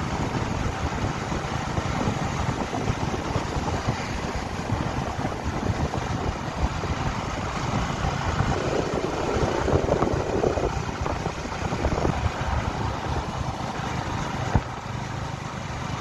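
Motorcycle engine running at a steady cruising speed, with wind rushing over the microphone; a single brief knock near the end.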